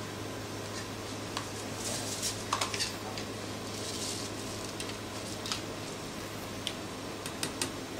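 Kitchen utensils clinking and tapping against pans and a cutting board: scattered light clicks over a steady low hum.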